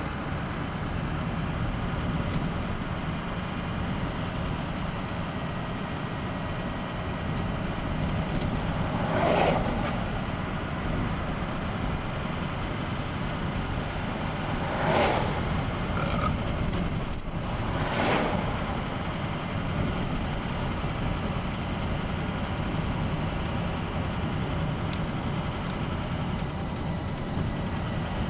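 Steady road and engine noise of a moving car heard from inside the cabin, with three oncoming vehicles passing by, about a third of the way in, just past halfway and about two-thirds through.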